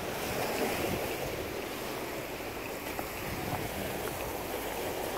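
Steady outdoor noise of wind and sea surf, with wind rumbling on the microphone.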